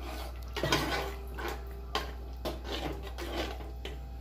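Steel ladle stirring a thin, watery curry in a pot, with several short scrapes and knocks of the ladle against the pot.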